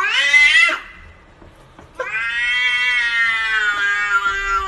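Domestic cat meowing twice in long, drawn-out calls. The first rises in pitch and ends within the first second; the second, longer and held nearly steady, begins about two seconds in.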